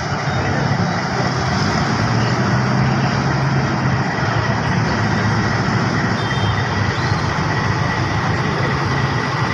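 Diesel-electric locomotive's engine running steadily as it moves slowly past on its own, a deep hum under a dense rumble.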